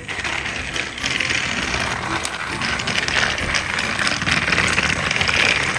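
Plastic toys clattering and rattling on a plastic toy train track: a dense run of small clicks and knocks without a break.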